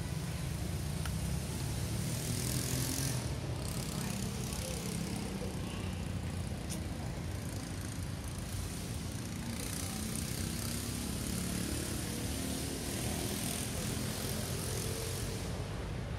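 Steady outdoor background noise: a low rumble with a hiss over it, swelling and easing slightly, with no distinct event standing out.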